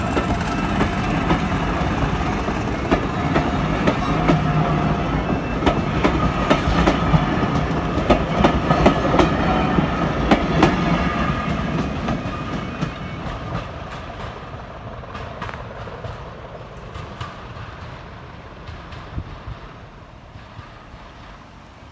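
Heritage railway passenger coaches rolling past at close range, their wheels clicking over the rail joints. The sound fades steadily from about halfway through as the train moves away.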